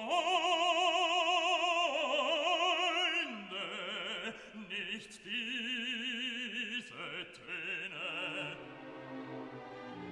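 Background music: an operatic voice singing long held notes with wide vibrato, the pitch stepping down and up between notes.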